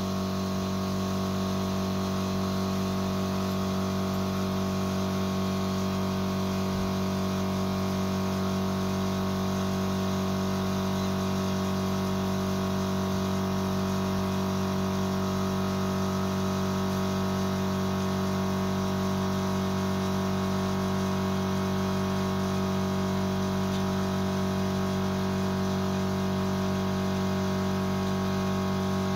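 Electric air compressor running steadily with a constant hum as it pumps up its tank.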